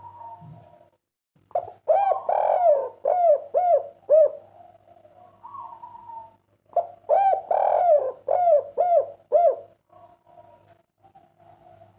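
Spotted dove (derkuku) singing a 'kuk 3' song: two loud cooing phrases, each a string of short arched coos, with softer coos between them.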